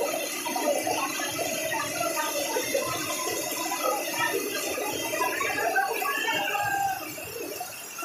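Many voices overlapping: a crowd shouting and shrieking over a steady hiss. It eases off somewhat near the end.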